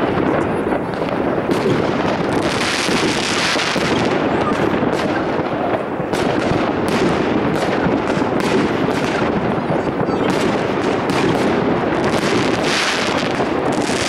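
Many fireworks going off at once: a dense, unbroken crackle of rocket bursts and bangs, with sharp reports following one another thick and fast.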